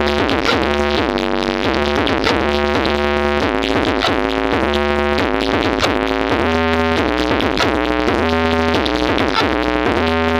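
Electronic dance music played loud through a large sound system: repeating synthesizer chords over deep, sustained bass notes.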